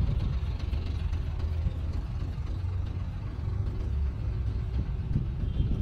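Street traffic noise: a steady low rumble of vehicle engines.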